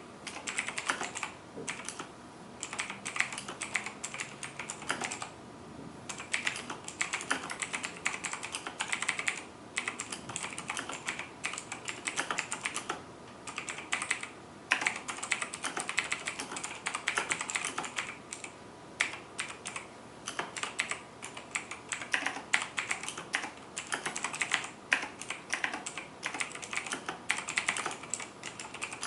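Clicky mechanical switches of a Razer BlackWidow keyboard being typed on in fast runs of keystrokes, with short pauses between bursts.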